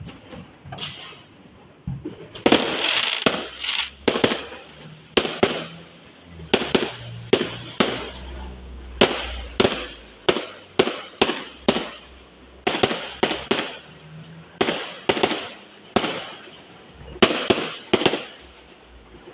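Fireworks going off: a long, irregular string of sharp bangs, often two or three a second, some trailing off briefly.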